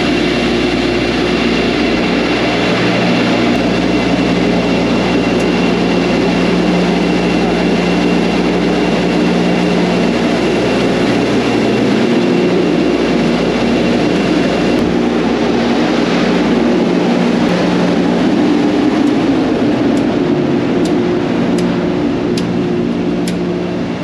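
Dozens of Bitmain Antminer S19 miners running together, their cooling fans making a loud, steady whir with a constant hum underneath. A high whine drops out about halfway through, and a few light clicks come near the end.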